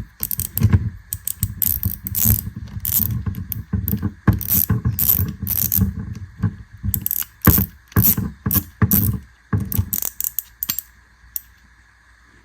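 Irregular clicks and clacks of a spinning reel and its gear being handled, a quick run of them, then stopping about eleven seconds in.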